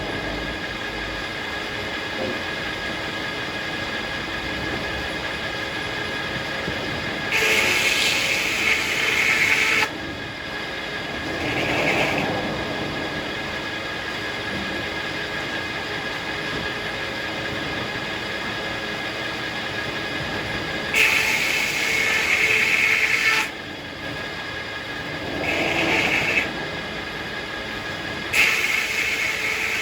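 Circular sawmill blade spinning with a steady whine, cutting into hackberry wood three times: each cut comes in suddenly, louder and hissier, lasts about two seconds and drops off just as suddenly. Softer swells around twelve seconds in and near the end fall between the cuts.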